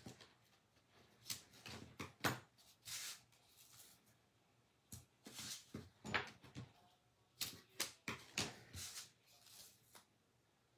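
Double-sided foam tape being pulled off its roll and pressed in strips onto black cardstock: a series of short, crackly rips and paper rustles with pauses between them.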